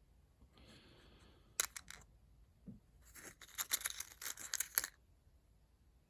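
Handling noise as small stones are swapped: a short soft scrape, a few sharp clicks about a second and a half in, then a quick run of clicks and rustling lasting nearly two seconds.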